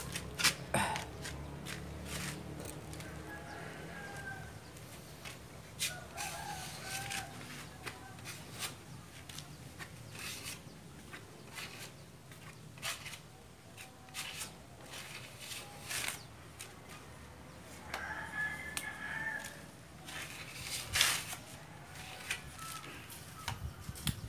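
Steel putty knife scraping and clicking in short strokes as plastic car body filler is spread thinly over a wooden window frame. A rooster crows in the background several times.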